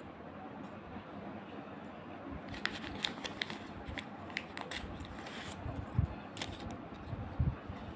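Hands handling a ball of wool yarn over knitting on steel needles: soft rustling with a quick run of light clicks from about two and a half seconds in, and a few more near the end.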